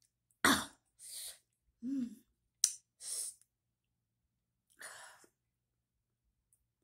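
A woman reacting to the burn of chili sauce with short hissing breaths through her mouth. There is a loud, sharp huff about half a second in, a brief voiced "hm" around two seconds, and a small click of the lips or tongue.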